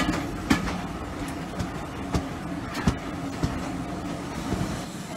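Railway coaches running along the track: sharp wheel knocks over the rail joints, roughly one to two a second, over a steady rumble. Another train of coaches passes close alongside until about four seconds in.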